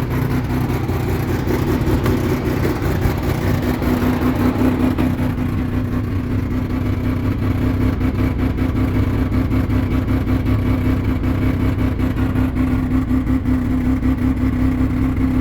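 1985 Mazda RX-7 GS's 12A two-rotor rotary engine idling roughly, its loudness pulsing unevenly; the rough idle is bad enough to shake the whole car.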